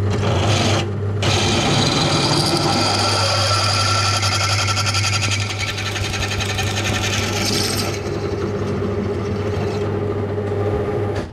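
Drill press running with an 8.1 mm twist bit boring the lanyard hole through a 4.5 mm thick 1095 carbon-steel knife blank. A steady motor hum runs under the scraping hiss of the bit cutting steel, which eases after about eight seconds. The hum stops near the end.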